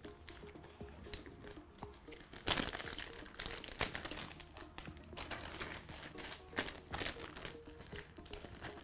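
Thin plastic bag crinkling and rustling in short, irregular bursts as a slice of bread is handled and slipped into it, the loudest rustle about two and a half seconds in.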